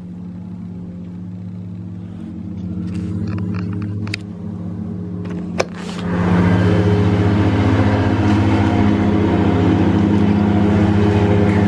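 A steady engine drone with a low, even hum, muffled at first. After two sharp clicks about four and five and a half seconds in, it becomes much louder and fuller as a door to the outside is opened onto a screen.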